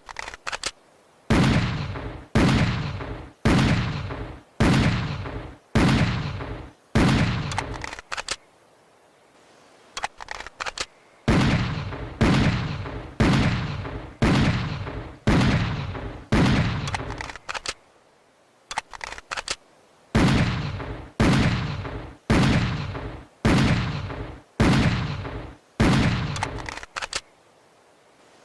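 Schofield .45 revolver firing, one shot about every second, each shot ringing out and fading. There are three strings of shots, with short bursts of metallic clicking between them.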